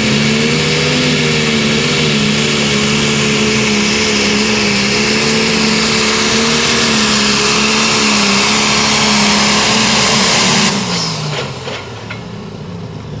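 Turbocharged diesel engine of a John Deere limited pro stock pulling tractor running flat out under load as it drags the sled, its pitch wavering a little under a steady high hiss. About ten and a half seconds in, the engine drops off sharply and falls in pitch as the pull ends.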